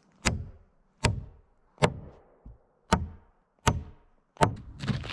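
Hammer striking nails into wooden roof boards: six sharp blows, about one every three-quarters of a second, each with a short metallic ring.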